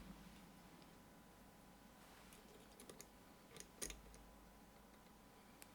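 Near silence with a few faint, short metallic clicks and taps of lock picks and a tension tool being worked into a lock, a cluster about halfway through and one more near the end.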